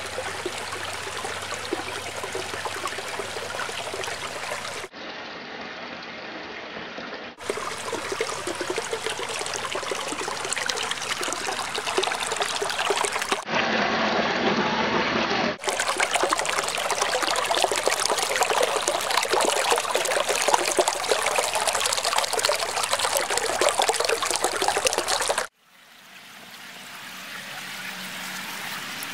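Running, trickling water in several spliced recordings that change abruptly a few times. Near the end it drops to a quieter, steadier hiss.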